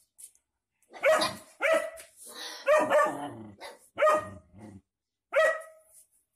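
A Doberman barking: a series of loud, sharp barks in bursts, about seven in all, with a short pause before a last bark near the end.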